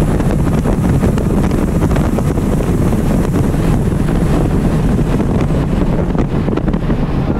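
Inside the cabin of a 2012 Porsche Cayman R at speed on track: the 3.4-litre flat-six near 6,400 rpm under heavy wind and road rush. The car then brakes and drops from fourth to third, engine speed falling to about 4,400 rpm.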